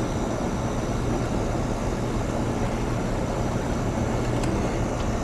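Air-conditioning equipment running: a steady mechanical rushing sound with a constant low electrical hum.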